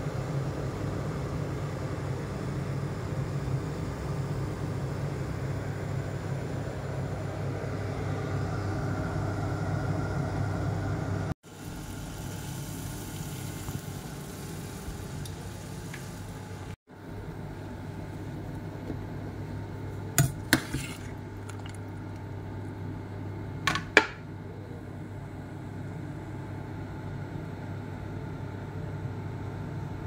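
Water boiling in a stainless steel pot on an induction hob over a steady low hum, with two short clinks against the pot about twenty and twenty-four seconds in as the pelmeni go in.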